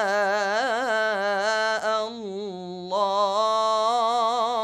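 A man's voice chanting an Islamic supplication (dua) in the ornamented Egyptian ibtihal style, drawing out a long melismatic phrase with quick turns of pitch. It softens briefly about two seconds in, then swells again.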